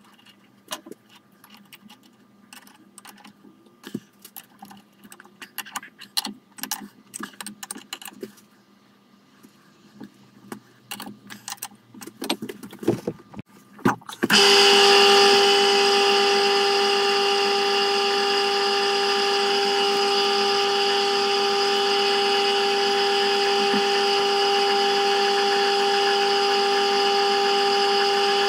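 Clinks and knocks of metal parts being handled and adjusted on a small metalworking machine. About halfway through, the machine's electric motor switches on suddenly and runs at a steady speed with an even whine.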